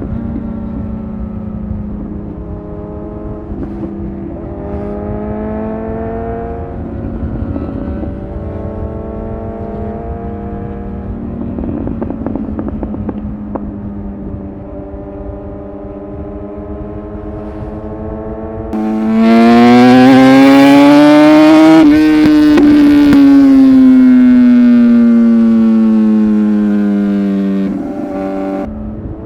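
Superbike engines running at road speed over wind rumble, their pitch drifting as the revs change. About two-thirds of the way in, one engine comes in much louder, its revs climbing for a few seconds and then falling slowly, before the sound cuts off abruptly near the end.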